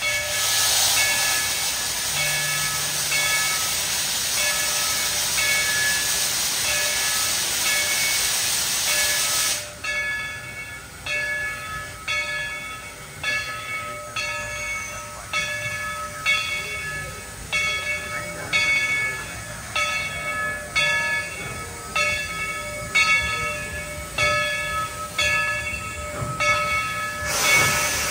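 Steam locomotive No. 70 venting a loud, steady hiss of steam that cuts off after about nine seconds, with a ringing tone repeating in an even rhythm underneath, as from the locomotive's bell. After the hiss stops the ringing goes on at about one stroke every 0.7 seconds, and a short burst of steam hiss returns near the end.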